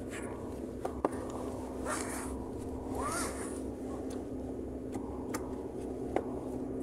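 Steady low hum of a car cabin, with handling noise from a phone being moved about: rustling swishes around two and three seconds in, one short rising squeak, and a few sharp clicks.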